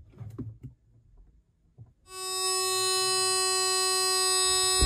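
BYD Han electric car letting out a shrill electronic buzzer tone as it is switched on. It starts about two seconds in and holds as one steady high tone. It is an unexplained fault noise that stops when the car is powered off.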